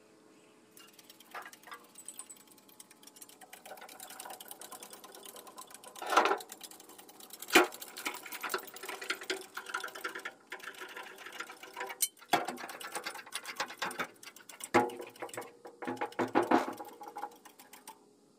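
Fast, rattling metallic clicking, with several sharp louder clanks, as a painted VW Beetle floor pan is tilted on its straps on an engine hoist.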